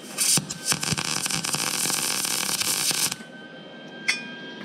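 MIG welder arc crackling as it lays a bead on thin sheet metal, on the welder's lowest heat setting, for about three seconds before it stops. A brief click follows near the end.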